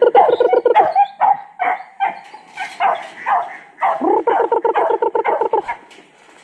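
Dog barking excitedly: short yelps and yips, with long drawn-out whining howls at the start and again about four seconds in.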